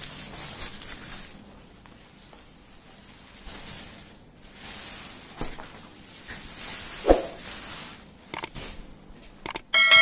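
Plastic bubble wrap rustling and crinkling as it is pulled off a ring light in its carry bag, with a sharp knock about seven seconds in as the ring light is handled. Near the end, a couple of clicks and a bell chime from a subscribe-button sound effect.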